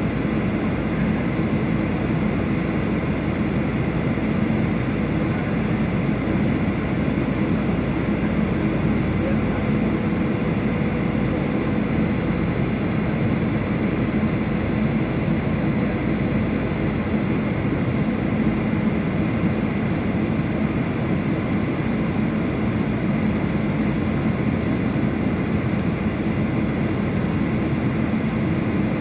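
Steady engine and airflow noise heard inside the cabin of a Boeing 737 airliner on its descent.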